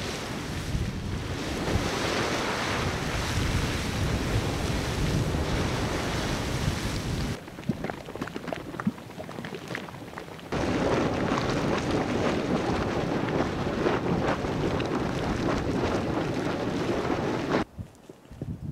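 Rushing, hissing noise of steaming geysers and hot springs in the snow. It drops to a quieter crackling stretch at about seven seconds, comes back loud at about ten seconds, and cuts off just before the end.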